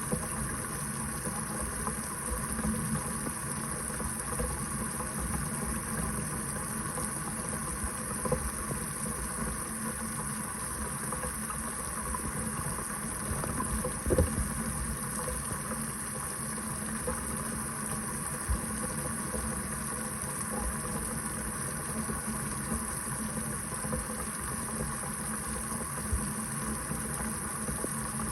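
Kitchen faucet running steadily into the sink, a continuous splashing rush of water, with a brief louder knock about halfway through.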